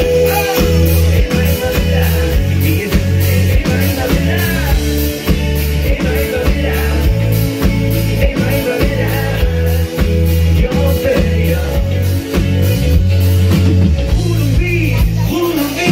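A live rock band playing with a lead singer: steady drum beat, heavy bass and amplified instruments under the vocal line.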